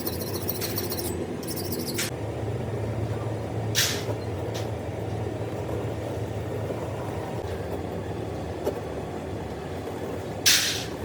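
Steady low machine rumble, broken by short sharp hisses of air: a small one about two seconds in, then louder ones about four seconds in and near the end.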